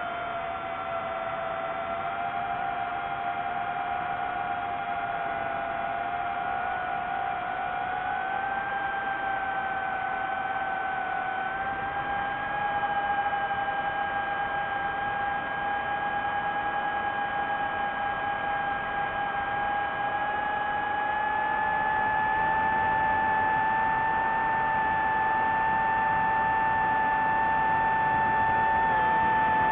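DJI FPV drone's motors and Gemfan Hurricane 5236 propellers in flight, giving a steady pitched whine over a rushing noise. The whine climbs slowly in pitch and grows a little louder as it goes.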